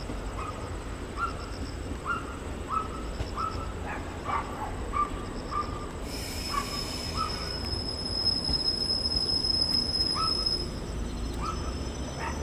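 JR Kyushu 415 series electric train rolling slowly into the platform with a low rumble, then a high, steady brake squeal from about halfway that stops shortly before the end as it draws to a halt. Over it, a short animal call repeats about every half second.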